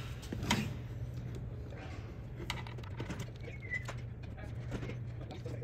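Small flathead screwdriver prying at a glued plastic tweeter back plate: scattered light clicks and scrapes of plastic, the loudest about half a second in, over a steady low hum.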